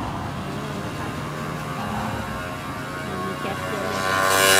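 Steady hum of a car heard from inside the cabin, with a rush of engine and road noise building about four seconds in as the car gets moving.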